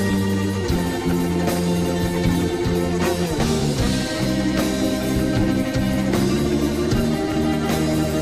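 A rock band playing live with a psychedelic sound: electric guitar over drums and tabla, with a steady beat.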